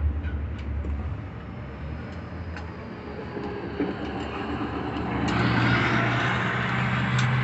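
Heavy truck traffic going past: a truck engine's low rumble that grows louder about five seconds in. A few light clicks sound early on.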